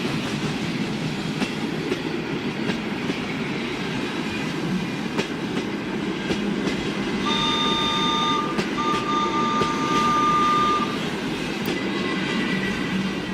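Train running on rails, a steady rumble with scattered clicks from the track. About seven seconds in, a four-tone wooden train whistle sounds a steady chord for roughly three and a half seconds, with a brief break near its start.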